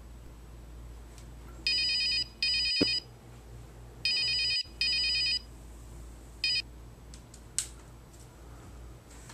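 Phone ringing with an electronic trilling ring in two double rings, then a short fifth ring cut off, followed by a sharp click.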